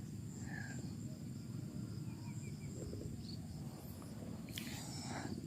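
Faint outdoor ambience: insects keep up a steady high-pitched drone over a low rumble, with a few short faint chirps.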